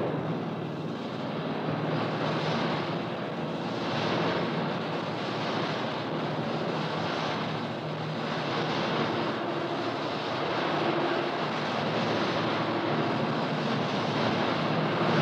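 Experimental noise music: a dense, steady wash of noise with a low hum underneath, swelling and fading gently.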